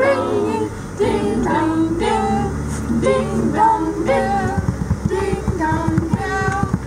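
Several women and girls singing together, with the van's engine and road noise rumbling underneath.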